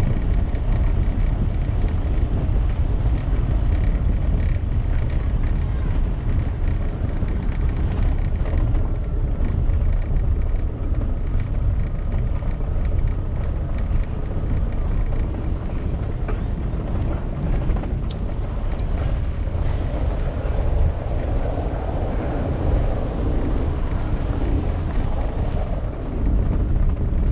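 Car driving over cobblestone paving: a steady low rumble of the tyres on the cobbles, which takes on a fuller, brighter tone for a few seconds about three-quarters through.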